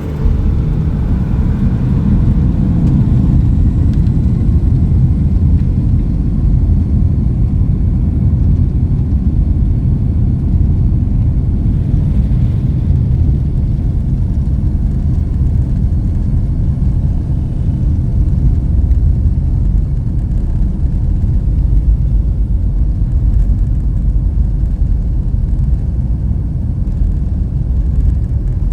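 Boeing 757 jet airliner on its takeoff run, a loud steady low rumble of engines at takeoff power, with a faint rising whine in the first few seconds.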